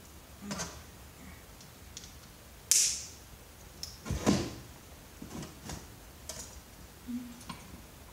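Hand-handling noises of parts and tools: scattered clicks and knocks, a short sharp high scrape about two and a half seconds in, and a heavier knock just after four seconds.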